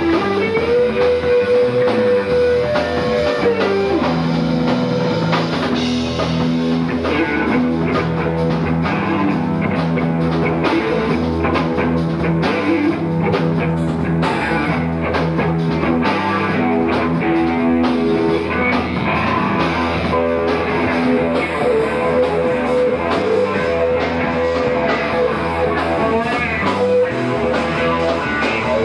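Live rock band playing loud electric guitars through Marshall amps over a drum kit, the guitars holding long sustained notes and chords.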